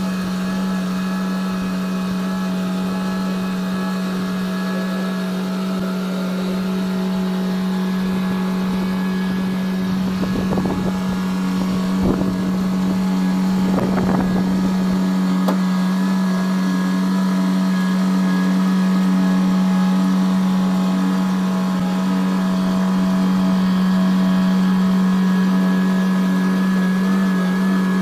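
Haulotte construction vehicle's engine running at a steady speed, a constant hum with steady overtones. A few short rushing noises come through around the middle.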